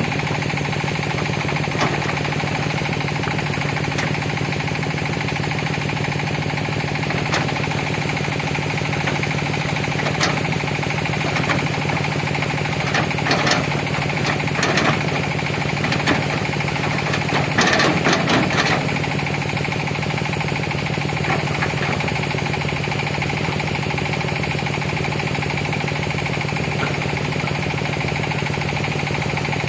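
Diesel engine of a Hitachi ZX200 hydraulic excavator running steadily, with occasional single knocks and two short clusters of knocking and rattling about halfway through.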